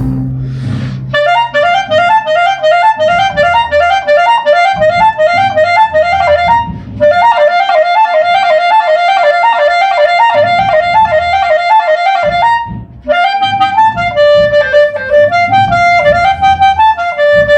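Clarinet with an ebony body playing a lively banda sinaloense melody in fast running notes. It breaks off briefly twice, about a third of the way in and again after about twelve seconds, and closes with a slower phrase that steps downward near the end.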